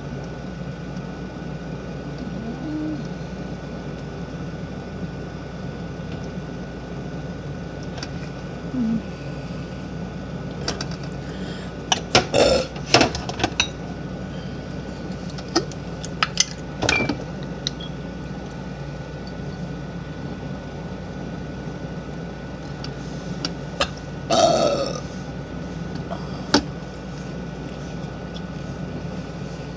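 A woman burping several times, the loudest and longest burp about two-thirds of the way through, over a steady background hum. Sharp clicks and knocks, like things being handled, come in two clusters around the middle.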